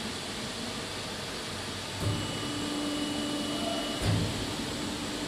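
EPS styrofoam pattern press running, a steady mechanical drone. A knock comes about two seconds in as a steady hum starts with a faint high whine, and a second, louder knock about four seconds in as the press moves.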